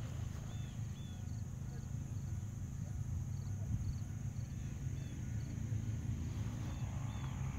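Open-field ambience: a steady low rumble, with faint, short high chirps every second or so.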